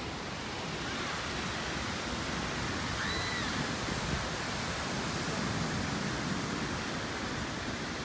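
Steady rushing wind noise, with one short bird call about three seconds in that rises and then falls in pitch.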